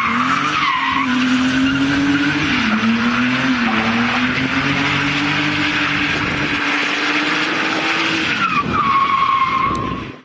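A BMW E36 drifting, its engine held high in the revs while the rear tyres squeal, with the revs dipping briefly a few times. Near the end the engine note falls off as the tyre squeal carries on, then the sound cuts off suddenly.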